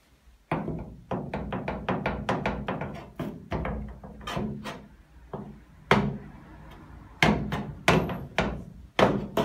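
Hammer striking the steel floor pan of a Mk1 Mini against a flat metal block held to the panel, knocking down a high spot left by welding heat distortion. A quick run of metallic taps slows into fewer, harder blows near the end.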